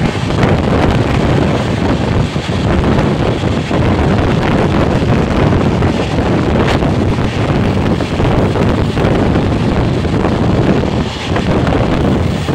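Heavy wind buffeting the microphone held out at the side of a fast-moving express train, over the steady rumble of the coach running on the track.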